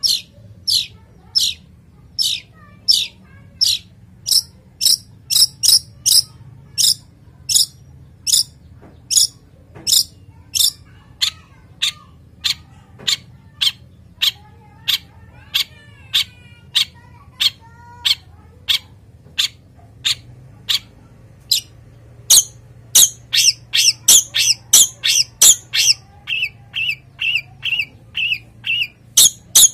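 Male long-tailed shrike (cendet) in breeding condition giving a long series of short, harsh 'toet' calls, about two a second, with faint warbling in between. Past the middle the calls come faster, and near the end they drop lower in pitch.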